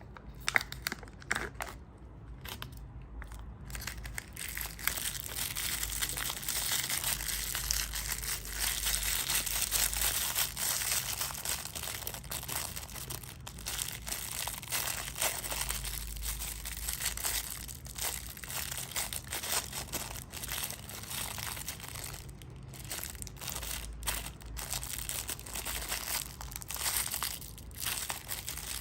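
Packaging crinkling and tearing as it is handled, a continuous run of small crackles and rustles that starts quietly and stays busy.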